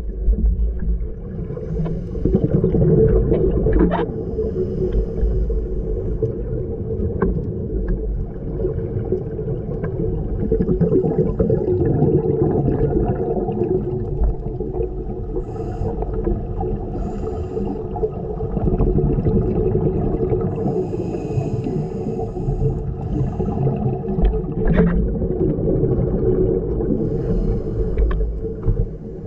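Steady low rumble with a droning hum, like a motor heard muffled, with short hissing bursts every few seconds.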